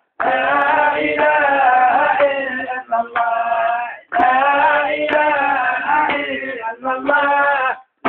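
Men singing in long held phrases. The sound drops out completely for a moment about four seconds in and again near the end.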